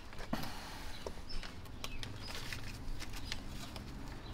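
Fabric grass-catcher bag being fitted onto its metal wire frame: scattered light clicks and rustles as the bag's plastic hook-on clips are worked over the frame.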